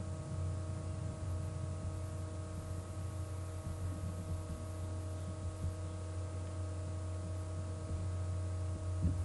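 Steady low electrical hum with a few faint steady tones above it, the recording's background noise, unchanged throughout.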